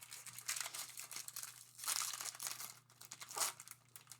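Plastic wrapper of a Bowman Baseball jumbo card pack crinkling and tearing as the pack is ripped open and handled, a continuous rustle that swells about two seconds in and again near the end.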